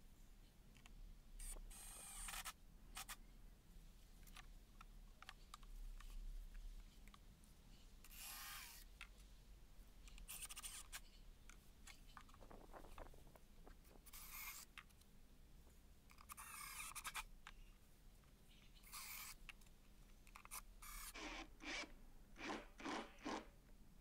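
Near silence broken by faint, brief scrapes as pine battens are handled and slid into place on a chipboard shelf frame. There are about eight of them, spread out, then a quick run of short scrapes and knocks near the end.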